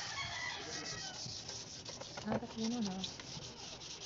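Hand wet-sanding of a painted plastic motorcycle fairing with 1000-grit sandpaper: a steady rasping rub of wet abrasive paper over the paint, the fine-grit pass that smooths out scratches before primer. A chicken calls briefly in the background near the start.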